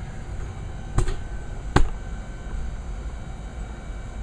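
Two sharp clicks, a little under a second apart, the second the louder, over a steady low hum.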